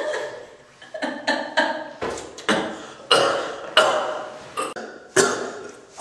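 A man laughing in abrupt, gulping bursts about every half second, breaking into choking and gagging as a popsicle catches in his throat.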